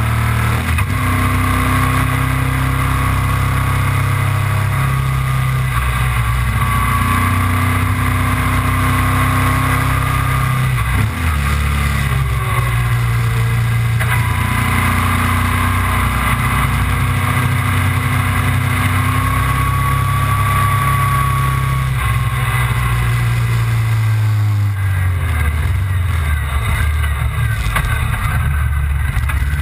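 Motorcycle engine running at road speed, heard from an onboard camera with wind noise over it. The engine note rises and falls in steps a few times, with a brief dip about eleven seconds in.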